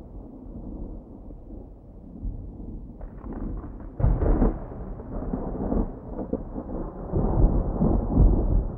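Thunder rumbling low, with a sharper crack about three seconds in and louder rolls of rumble after about four seconds and again near the end.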